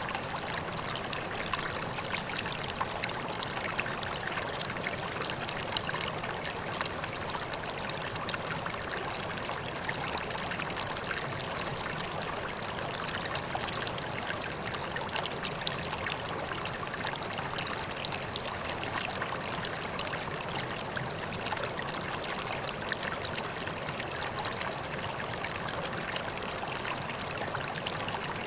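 Water pouring and trickling into a koi pond: steady, unbroken splashing.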